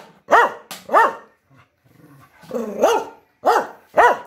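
A dog barking about five times in a row, with short gaps of half a second to a second between barks and a longer pause around the middle. Each bark rises and falls in pitch.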